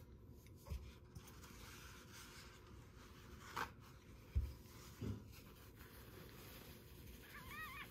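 Soft rubbing and a few dull thumps as a hand handles a newborn kitten on a fleece blanket, then near the end a faint, high kitten mew with a rising-and-falling pitch.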